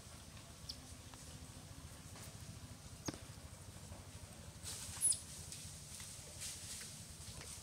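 A few short, high, falling chirps over faint outdoor ambience, the loudest about five seconds in.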